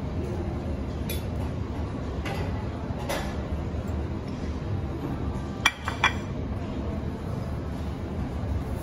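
Metal utensils clinking against stainless-steel food pans at an omelet station: a few scattered clinks, then a quick cluster of two or three sharper ones about six seconds in, over steady low room noise.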